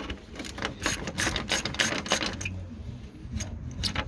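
Ratchet spanner clicking as it undoes the 8 mm bolts holding a car's bonnet catch. The clicks come fast and thick for the first two and a half seconds, then thin out.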